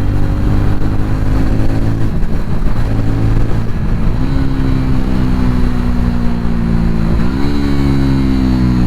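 TVS Ronin 225's single-cylinder engine running under way while the motorcycle is ridden. Its pitch breaks and picks up again about two and four seconds in, then dips sharply and climbs about seven seconds in, as with gear changes.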